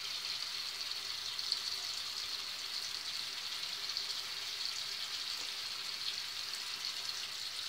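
Steady background hiss of room and recording noise, even and unchanging, with no distinct sound standing out from it.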